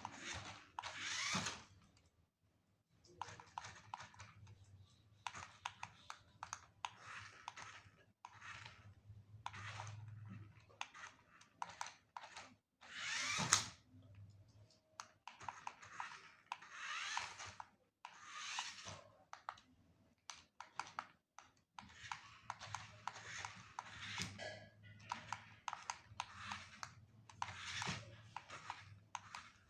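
Off-road RC car tyres and chassis crunching and rattling over dirt and gravel in short, irregular bursts.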